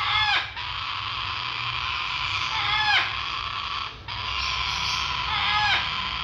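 Baby parrots begging while being fed from a syringe: a continuous raspy chatter, broken by a loud squawk that falls sharply in pitch about every three seconds. The chatter breaks off for a moment about four seconds in.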